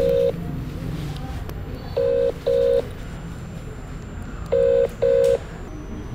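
Mobile phone ringback tone heard over speakerphone: a steady low tone in double rings, each pair repeating about every two and a half seconds, as the outgoing call waits to be answered.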